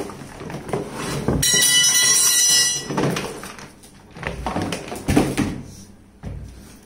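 Plastic knapsack sprayer tank being slid out of its cardboard box: a loud, squeaky scrape lasting about a second and a half, then rustling and a few knocks as the tank is tipped and stood on the table, the sharpest knock about five seconds in.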